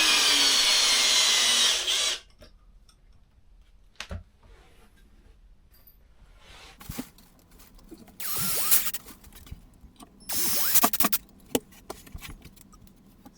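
A Milwaukee drill driving screws into wall brackets. It runs for about two seconds at the start, gives a brief spin about eight seconds in and another about ten seconds in, with light knocks and handling between the runs.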